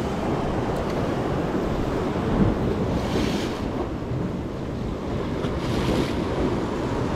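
Sea waves washing and splashing against jetty rocks, with wind buffeting the microphone. Two hissing splashes stand out, about three seconds in and again near six seconds.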